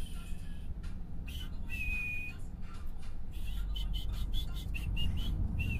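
Steady low road rumble inside a moving car, with a high whistled tune of short notes over it and one longer held note about two seconds in.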